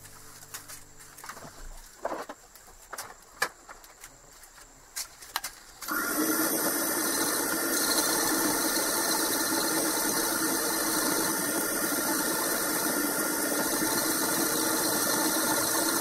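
A few light clicks and knocks, then a wood lathe starts suddenly about six seconds in and runs steadily with a mechanical hum. A small blade is held against the copper ferrule of an oak chisel handle as it spins.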